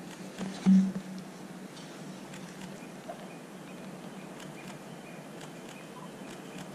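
Railway station platform ambience with no train passing: a steady low hum, one short loud low thump under a second in, and a few faint clicks and small chirps.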